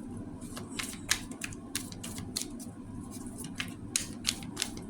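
Tarot cards being handled and shuffled by hand: a run of irregular crisp clicks and snaps, about three or four a second.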